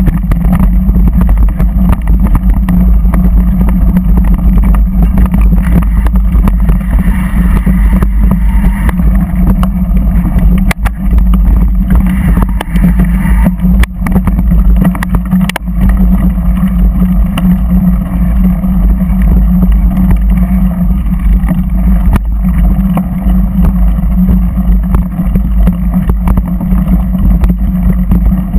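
A vehicle's engine running steadily at speed over a dirt track, with heavy low rumble on the microphone. A few sharp knocks cut through about 11, 14 and 15 seconds in.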